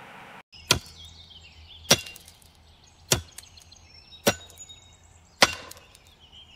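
Axe chops: five sharp, evenly spaced strikes a little over a second apart, each with a short ringing tail.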